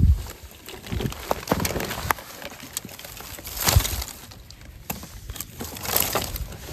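Irregular crunching and cracking, with a louder crack at the start and others about four and six seconds in.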